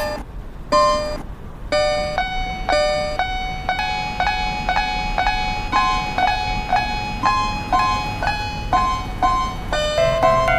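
Music: a piano-like keyboard playing short, repeated notes about twice a second, switching between a few pitches.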